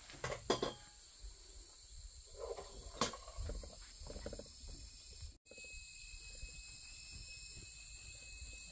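Faint, steady high drone of insects, with a few sharp knocks in the first second and another about three seconds in.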